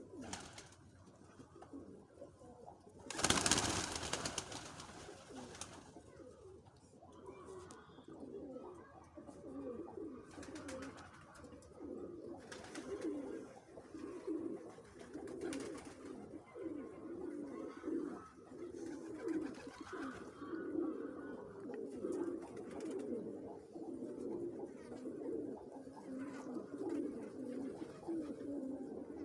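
Turtle doves cooing, low and continuous, with a loud burst of noise about three seconds in.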